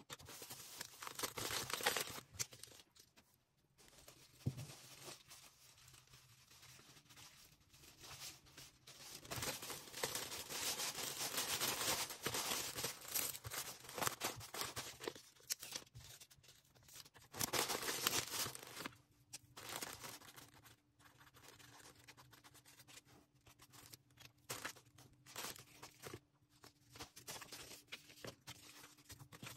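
Packaging material being handled and torn: plastic and paper crinkling and rustling in stretches of a few seconds, with quieter gaps between.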